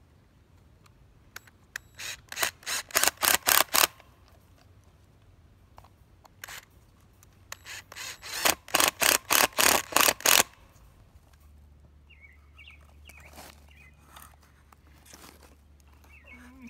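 Cordless drill run into a small wooden block in two bursts of rapid short pulses, each lasting about one and a half to two seconds, with a few single clicks between them.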